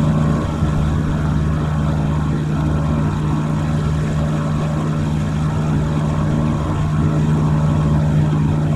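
Small outboard motor running at a steady speed, pushing an inflatable boat along; an even hum that holds the same pitch throughout.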